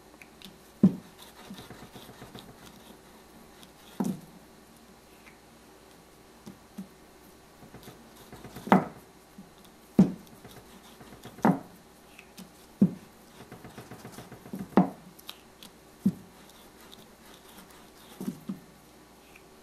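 Wooden rolling pin knocking and rolling on a wooden board as small puris are rolled out of semolina dough: about nine dull, irregularly spaced knocks with a faint rustle between them.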